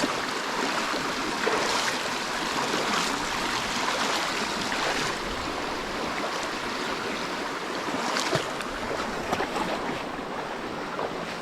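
Rushing creek water, steady and fairly loud, with a few short splashes from someone wading across the creek.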